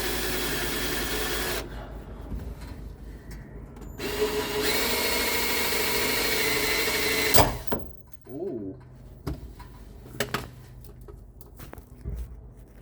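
Power drill boring a hole into a metal frame at a center-punched mark, running steadily in two runs: it stops about a second and a half in, starts again about four seconds in, and cuts off with a sharp clack about seven and a half seconds in. Light clicks and knocks of handling follow.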